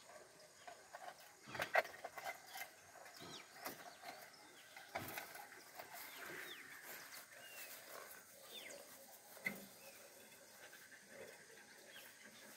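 Faint, short bird calls that slide down in pitch, heard several times, with a few sharp clicks and knocks from handling; the knocks about 2 and 5 seconds in are the loudest.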